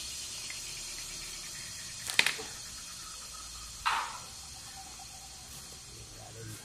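A sharp knock about two seconds in and a second, duller knock with a short rustle just under two seconds later, over a steady hiss, as small shoe-rack parts are handled on a tabletop.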